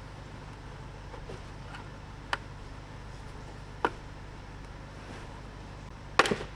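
Sharp clicks and taps from hand work on a convertible top frame: two single clicks a second and a half apart, then a louder double knock near the end, over a steady low hum.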